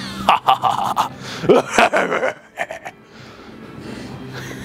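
Laughter and gasps: loud, choppy bursts through the first two seconds or so, then a quieter stretch with only a low background hum.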